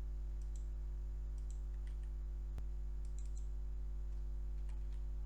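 Scattered clicks of a computer mouse and keyboard, a few at a time in small groups, over a steady low electrical hum.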